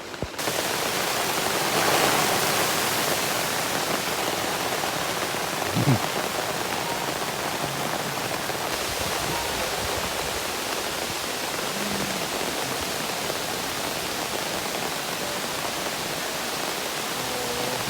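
Heavy rain pouring down in strong wind, a dense steady hiss that swells about two seconds in. A single dull thump about six seconds in.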